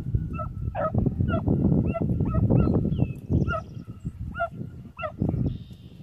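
Geese honking in short calls, about ten in a few seconds, over a loud low rumble.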